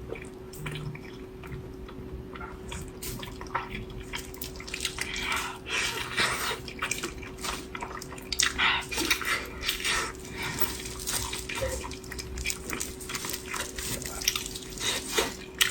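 Close-miked eating: wet chewing, smacking and mouth clicks coming irregularly in quick succession, over a faint steady hum.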